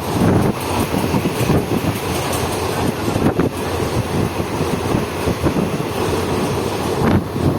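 Passenger express train running on the rails: a steady rumble of wheels on track with a couple of sharp knocks.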